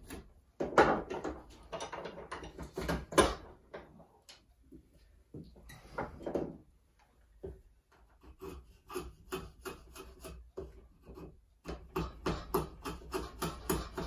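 A wooden axe handle being shaved down by hand with a bladed tool: rasping, scraping strokes as the end is worked to fit a smaller axe head's eye. There are a few strong strokes at first and a quieter spell, then quick, regular strokes, about two or three a second, in the second half.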